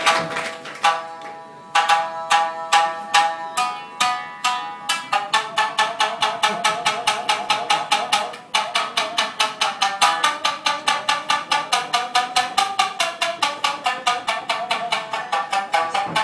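Solo shamisen, its strings plucked in sharp, percussive notes. A few spaced notes open, then about five seconds in it settles into a faster steady rhythm of about four notes a second.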